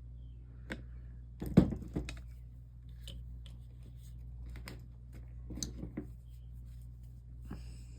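Scattered light clicks and knocks of glass pieces and soldering tools being handled on a workbench, the loudest about a second and a half in, over a steady low hum.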